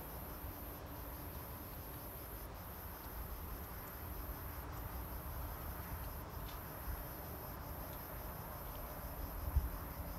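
Steady high-pitched insect chorus over a faint hum of honeybees at an open beehive, with low wind rumble on the microphone and a couple of soft bumps near the end.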